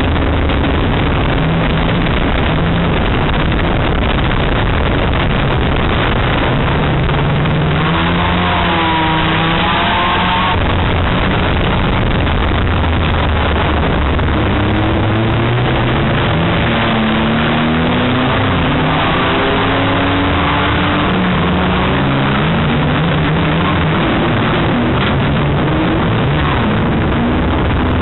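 Banger racing car's engine heard from inside the car under racing, its pitch climbing and dropping again and again as the driver accelerates and lifts off, over loud road and wind noise. The sound is overloaded and distorted.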